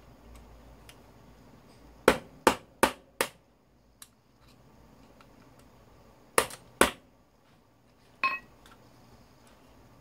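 Hammer blows on a steel punch, knocking fasteners out of the housing of an old LG wall-fan motor. There are four sharp strikes about a third of a second apart two seconds in, two more after six seconds, and a last hit with a short metallic ring after eight seconds.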